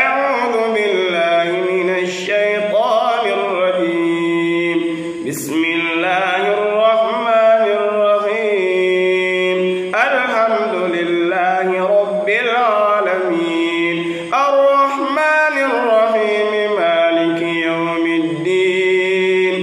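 A man's solo Qur'an recitation in Arabic, chanted melodically with long held notes and gliding pitch, in phrases with short breaks for breath. There is a brief click about five seconds in.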